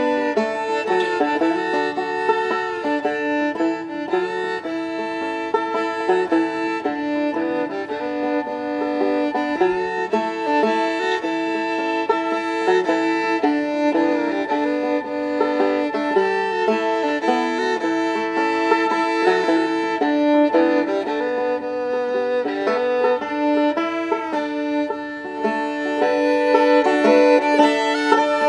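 Fiddle and banjo playing an old-time waltz together, the bowed fiddle carrying the melody in long held notes over the banjo's picked accompaniment.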